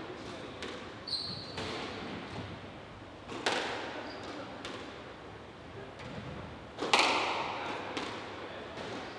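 Squash ball being struck by rackets and hitting the court walls during a rally: sharp smacks that echo in the enclosed court, the loudest about three and a half and seven seconds in. A shoe squeaks briefly on the wooden floor about a second in.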